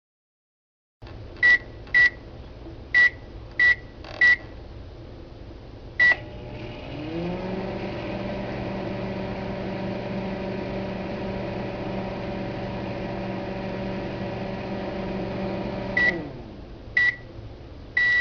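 Microwave oven being set and run: five short keypad beeps, another beep as it starts, then its running hum rises over about a second and holds steady for about nine seconds. The hum stops with a beep, a second beep follows, and a long end-of-cycle beep starts at the very end.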